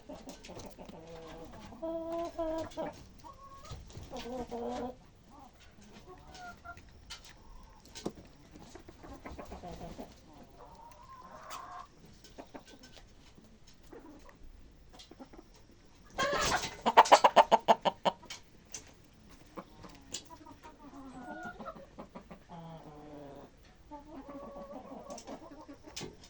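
Chickens clucking on and off, with one loud, rapid run of calls about two-thirds of the way through.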